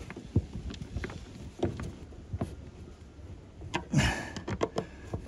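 Scattered small clicks and scrapes of a hand tool turning the bolts of a solar cable gland. A brief rush of noise comes about four seconds in.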